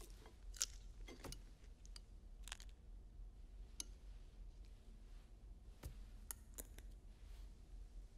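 Quiet eating at a table: a handful of scattered light clicks and clinks of cutlery and dishes, with soft chewing, over a faint low hum of room tone.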